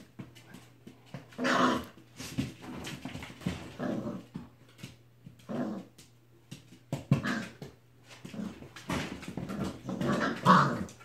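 Puppies play-fighting, growling in short bursts, with the longest and loudest stretch near the end.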